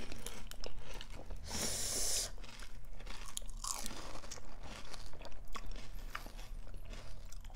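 Close-up chewing and crunching of panipuri, the crisp puri shells cracking between the teeth with wet mouth sounds. A short burst of hiss about a second and a half in.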